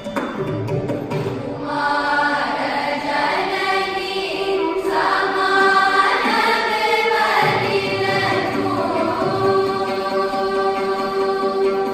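Large choir of children and teenagers singing a Carnatic song together. The voices come in strongly about a second and a half in and hold long sung notes.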